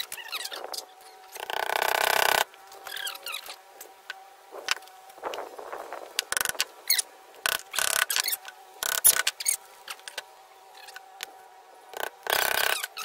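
Claw hammer tapping nails into thin plywood birdhouse pieces: a string of irregular, sharp knocks. A louder rough scraping noise lasts about a second near the start and comes again briefly near the end.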